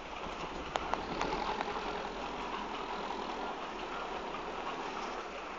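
Tractor engine of a tree-spade machine running steadily while it carries a transplanted coconut palm, with a couple of sharp clicks about a second in.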